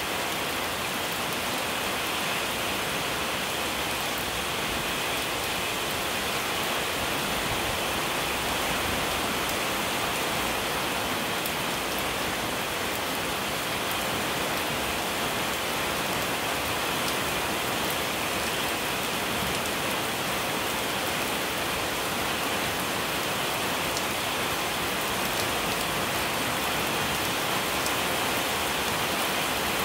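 Steady rain falling on a puddled paved yard and leafy trees: an even hiss with faint scattered drop ticks.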